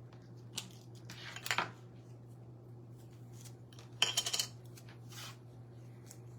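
Short rustling, scraping handling noises of a stencil transfer sheet being peeled up from the table and moved, in four brief bursts, the loudest about four seconds in, over a steady low hum.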